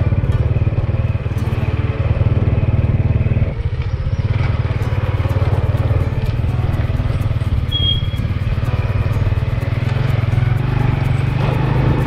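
Motorcycle engine running steadily while under way, a constant low, fast-pulsing note.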